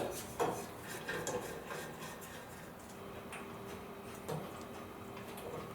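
A few scattered light clicks and taps of metal hardware as bolts are fitted into a steel furniture frame during assembly, over a faint steady hum.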